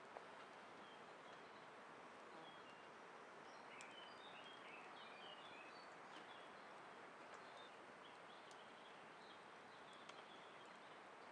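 Faint, quiet woodland ambience with a steady soft hiss, and a small bird giving a quick run of high chirps about four seconds in, with a few single chirps scattered elsewhere.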